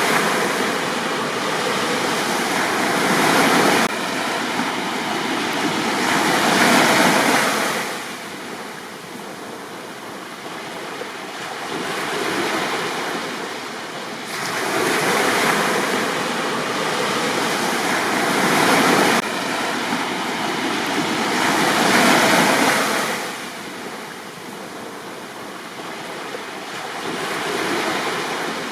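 Sea waves breaking on a beach. The surf swells and washes in, then ebbs, in repeated surges several seconds apart.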